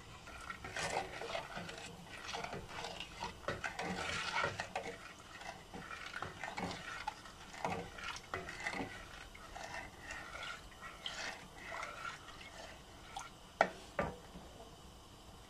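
A ladle stirring sugar into water in a stainless steel pot, scraping and tapping irregularly against the pot's bottom and sides as the sugar dissolves, with two sharper knocks near the end.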